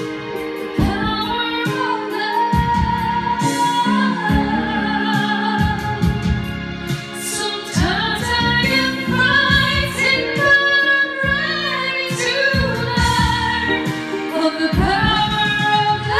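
A woman singing a pop ballad into a handheld karaoke microphone over a music backing track, holding several long notes.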